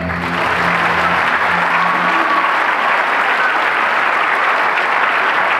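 Audience applauding steadily, with the dance music dying away under the clapping about two seconds in.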